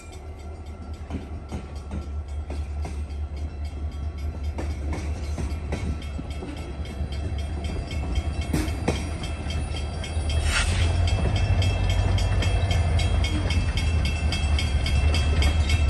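A freight train rolling past: the diesel locomotive's low rumble, then tank cars with wheels clicking irregularly over the rails. The low rumble grows louder over the second half, with a short hiss about ten seconds in.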